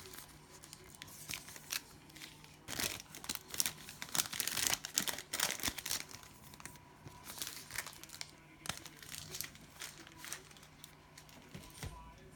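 Cellophane trading-card pack wrapper being handled, crinkling and tearing, loudest from about three to six seconds in, then softer intermittent rustling.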